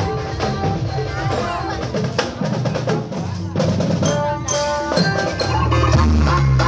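Music with drums and percussion.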